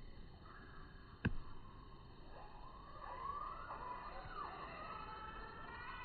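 A single sharp click about a second in, then from about two seconds in a faint siren wailing, its pitch sliding slowly up and down.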